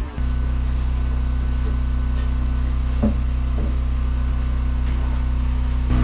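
Wood-Mizer portable bandsaw mill's engine idling, a steady low hum, with a couple of faint knocks about halfway through.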